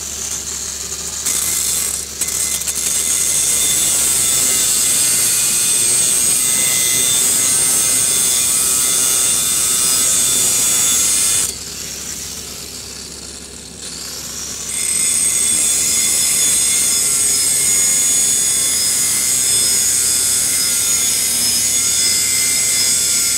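Angle grinder running against the edge of a car's brake disc, grinding off the raised lip (ridge) that has been scoring grooves into the brake pad. It starts about a second in, goes quieter for about three seconds midway, then runs again.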